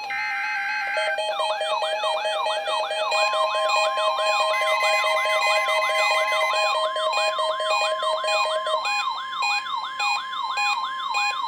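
NOAA Weather Radio 1050 Hz warning alarm tone, a steady high tone starting about three seconds in, sounding together with a siren-like alert alarm: a rising whoop repeated about two and a half times a second, over a lower pulsing beep that stops near the end.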